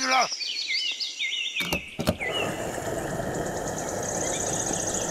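Birds chirping, then two sharp clicks about two seconds in, followed by a steady rushing noise with a fast, high trill over it.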